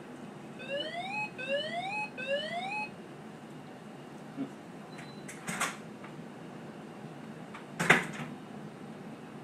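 Three short rising electronic alert tones in quick succession, then two sharp knocks later on, the second one the loudest sound.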